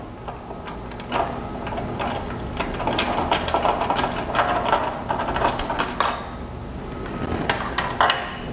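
Ratchet wrench clicking in rapid runs as a spark plug is unscrewed from a small engine's cylinder head, with a few sharp metal clinks near the end as the plug comes free.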